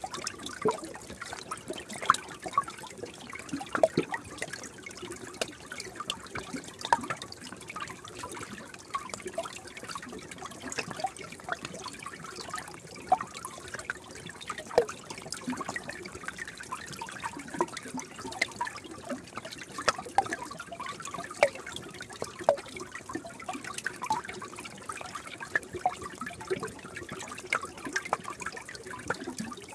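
A small stream trickling and gurgling, with many small irregular plops and bubbles over a steady rush of water.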